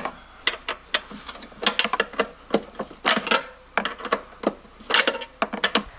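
Hand tools clicking and knocking against metal as screws are worked out of a Lawn-Boy mower's side guard: sharp clicks at an uneven rhythm, about three a second.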